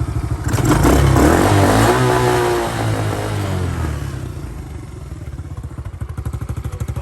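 Four-wheeler (ATV) engine idling, revving up about half a second in and then dropping back to a steady idle over the next few seconds.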